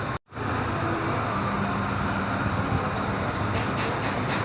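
Car engine and AC compressor running with a steady rumbling hum. The owner takes the compressor to be broken again.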